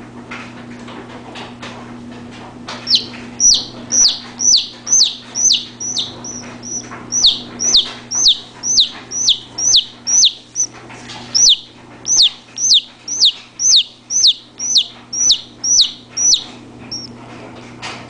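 A chick peeping loudly and repeatedly, about two sharp downward-sliding peeps a second, starting about three seconds in and stopping shortly before the end.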